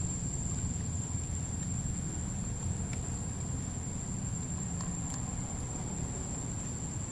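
Outdoor ambience: a steady high-pitched insect drone over a low rumble, with a few faint clicks.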